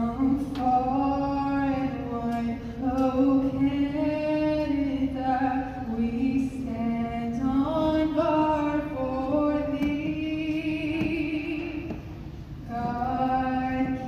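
A group of women singing together into microphones, holding long notes, with a short break near the end.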